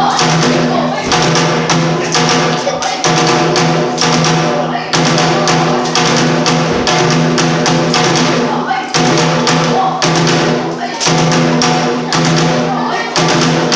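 Bitchu kagura stage music: strokes on a taiko drum at an uneven rhythm over a steady, held pitched tone.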